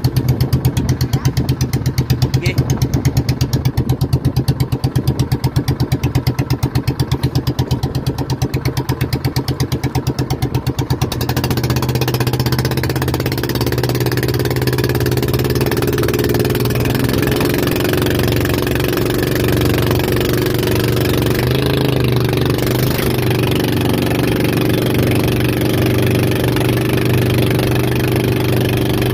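Outrigger boat's engine running close by: a slow, even thudding for about the first eleven seconds, then it picks up to a steadier, faster run as the boat starts towing the banana boat.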